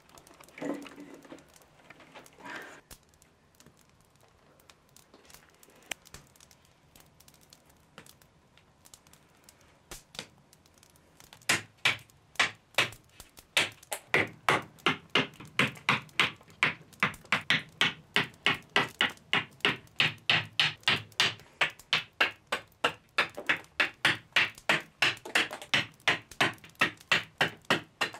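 Small hatchet hewing a wooden bow stave: sharp chops of steel into wood, repeated quickly at about two to three a second, starting about eleven seconds in after a few faint knocks.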